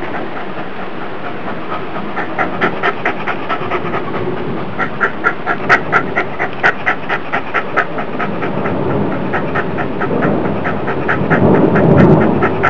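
Small black dog panting fast and hard, about four or five breaths a second, with a short break a few seconds in. A louder low rumble swells near the end.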